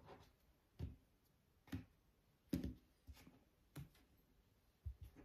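Soft taps and clicks of a deck of cards being handled and knocked against the tabletop, about six in all and irregularly spaced, with near silence between them.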